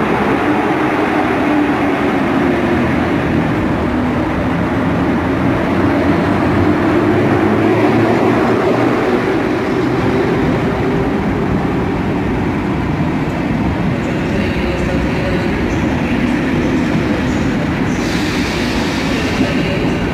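An EP07 electric locomotive and its train of passenger coaches rolling slowly past: a steady rumble of wheels on rail with a low hum, under an echoing station roof.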